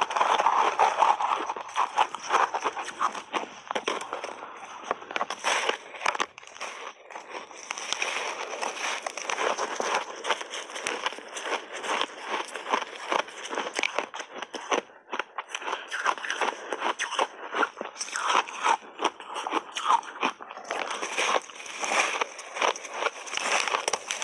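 Crunchy crushed ice dusted with matcha powder being bitten and chewed close to a clip-on microphone: a dense, continuous run of crackling crunches with no pauses of note.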